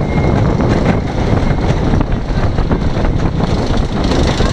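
Wooden roller coaster train rolling along the track, its wheels rumbling with irregular clacks, and some wind on the microphone.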